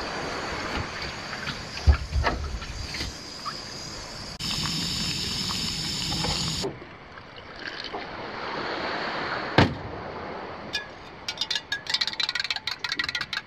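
Camp sounds in three short scenes. Water lapping against an aluminium boat with a heavy thump about 2 s in, then a Jetboil stove hissing steadily as its water boils, cutting off abruptly. Near the end, a spoon clinks quickly against the inside of a metal mug as a drink is stirred.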